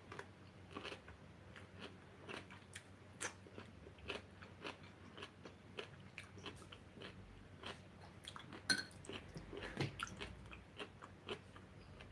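Close-miked chewing and biting of food, with irregular crunchy mouth clicks and a sharper click a little before nine seconds in.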